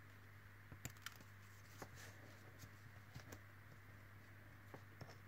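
Near silence broken by a few scattered faint, sharp clicks: small scissors snipping thin craft wire into short lengths.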